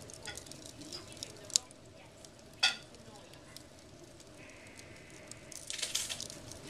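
Wood logs burning in a glass-fronted fireplace, crackling with scattered small pops. Two sharp, louder pops come about one and a half and two and a half seconds in. Near the end there is a short burst of hissing.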